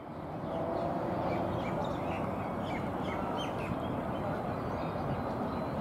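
Outdoor ambience fading in to a steady background rumble, with small birds chirping in many short, quick calls over it.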